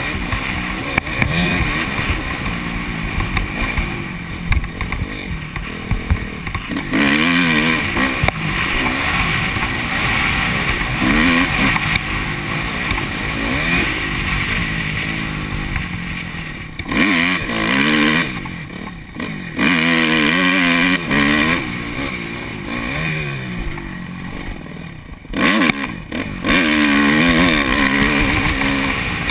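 Honda CRF250 dirt bike's four-stroke single-cylinder engine under way, its note rising and falling repeatedly as the throttle is opened and closed, with a few brief drops as the rider rolls off. Wind rushes over the helmet-mounted camera's microphone.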